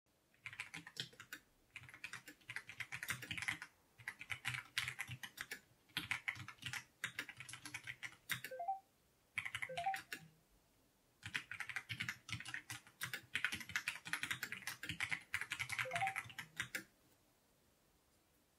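Fast typing on a JRIS 65 mechanical keyboard fitted with ceramic keycaps: runs of rapid key clacks in bursts with short pauses between, stopping near the end.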